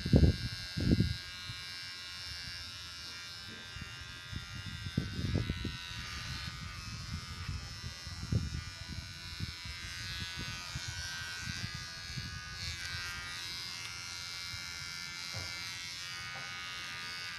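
Mi beard trimmer running with a steady high-pitched buzz as it is drawn over a moustache, with soft irregular low bumps from it knocking against the face. A couple of louder low thumps come in the first second.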